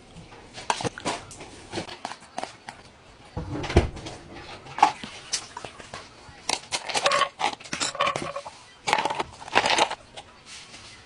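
A person eating close to the microphone: chewing, mouth smacks and crackly clicks come in irregular runs, with a low thump about four seconds in.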